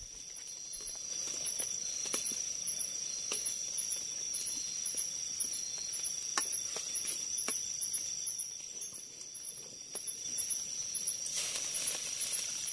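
Night insects sing throughout, a steady high whine with about two short chirps a second above it. Scattered light clicks come from a spatula stirring a wok of stew coming to the boil over a wood fire, and there is a short burst of rustling noise near the end.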